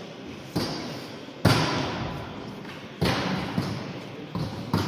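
About five sharp thumps and slaps from sambo wrestlers grappling on the mat, each echoing around a large sports hall. The loudest comes about one and a half seconds in.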